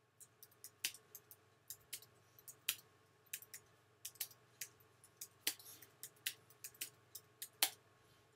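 Computer keyboard being typed on: irregular key clicks, about three or four a second, at a steady typing pace.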